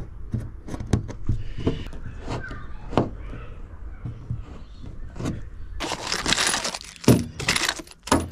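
Small hard parts clinking and knocking as they are handled, with scattered sharp clicks. About six seconds in comes a couple of seconds of loud crackly rustling, broken by a few sharp clicks.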